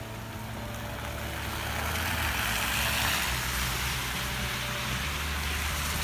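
Tracked sidewalk snowplow's engine running with a steady low drone, and a hiss that swells and fades about halfway through.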